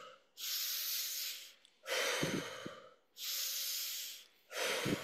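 A woman breathing deliberately and audibly in quick, full breaths: two in-and-out cycles, each breath a hissing rush of air about a second long. It is a demonstration of energising breathwork for someone who feels lethargic.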